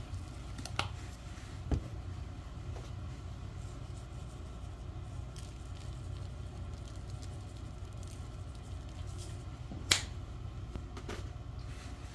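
Seasoning shakers being handled over a raw steak: a few sharp clicks and taps, the sharpest about ten seconds in, over a steady low hum in the room.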